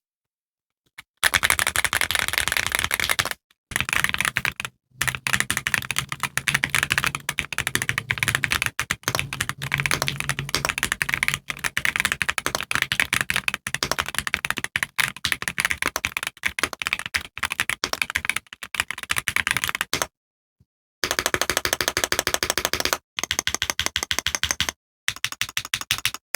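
Typing sound test on a mechanical keyboard fitted with Gateron EF Curry linear switches (pre-lubed, POM stem, polycarbonate top and nylon bottom housing) under PBT double-shot keycaps on a polycarbonate plate. Fast runs of keystroke clacks in several stretches, broken by short pauses, with slower single key presses near the end.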